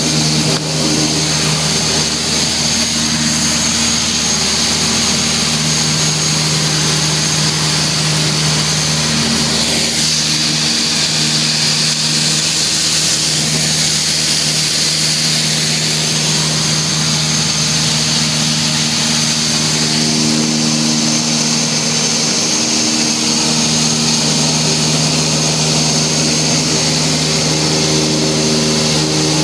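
Cabin noise of a Piper Seminole in cruise: its two four-cylinder piston engines and propellers drone steadily over a rush of airflow, the engine tones swelling and fading every several seconds.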